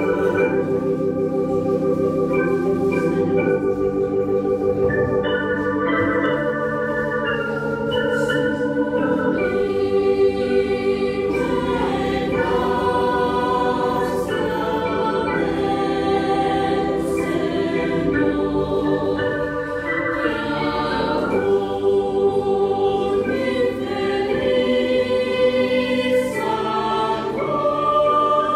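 Mixed choir singing with two digital keyboards, one a Casio Privia. The keyboards hold sustained chords alone at first, and the voices come in about nine seconds in.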